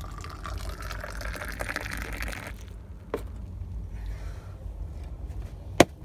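Liquid being poured into a container, the pitch rising as it fills, stopping about two and a half seconds in. A sharp knock near the end is the loudest sound.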